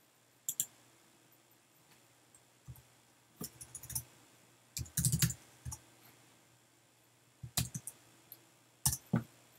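Computer keyboard keystrokes in short irregular clusters as a command is typed and entered. The heaviest run of strokes comes about five seconds in.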